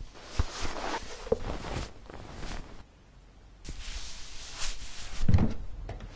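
Foley of cloth rustling as a muddy sock is pulled off a foot, in two spells of rustling. A soft thump of a foot comes near the start, and a stronger one near the end.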